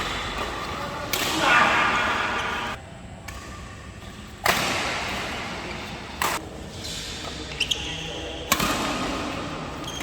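Badminton rackets hitting a shuttlecock in a rally, with sharp smacks at uneven intervals of one to three seconds that echo in a large hall.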